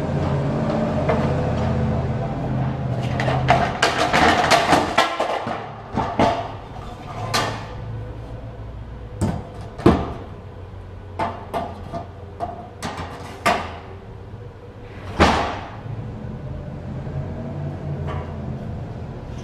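A long wooden board knocking and clattering against a truck trailer's metal side frame as it is handled into place: a run of sharp knocks, busiest a few seconds in, with single louder knocks near the middle.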